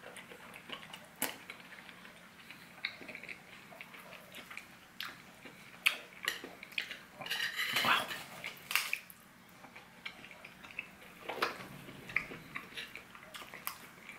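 Metal spoon clinking and scraping on a ceramic plate while scooping up food: scattered light taps, with a couple of longer scrapes.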